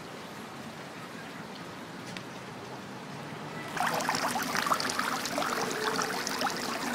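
Water from a tiered garden fountain splashing and trickling into its basins, starting suddenly about two-thirds of the way through. Before that there is only a steady low hiss.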